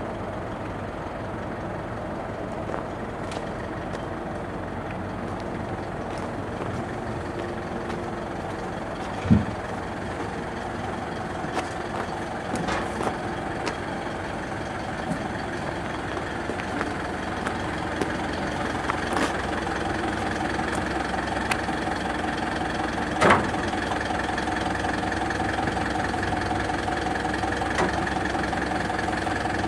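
Truck engine idling while it drives the hydraulics of a truck-mounted aerial work platform: a steady hum that gets a little louder past the middle, with a few short metallic clunks, the loudest about 23 s in.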